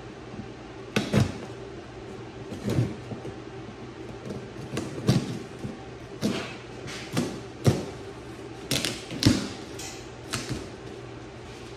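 Irregular thumps and knocks, about a dozen, some in quick pairs, from a box of raw-steel six-link rear suspension parts being unpacked and handled. A steady hum runs underneath.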